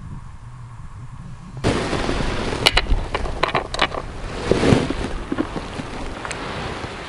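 Hands sorting through a plastic tackle tray of jig heads and soft-plastic lures: several sharp clicks and clatters, with rustling handling noise over a steady hiss.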